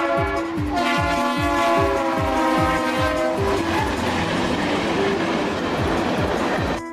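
Freight locomotive's air horn sounding a chord in two blasts, the second longer and slightly falling in pitch. From about halfway on, the train rushes past with a clatter of wheels on the rails.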